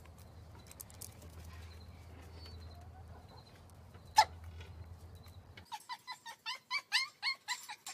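A low steady rumble with a single sharp click about four seconds in. Then, from a little before six seconds in, a small dog yaps rapidly, about four high-pitched yaps a second.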